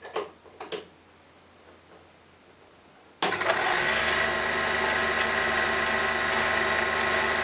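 Two light knocks, then about three seconds in the table saw's quarter-horsepower Robbins & Myers three-phase electric motor switches on suddenly and runs at a steady pitch, turning the saw blade through a belt and pulleys.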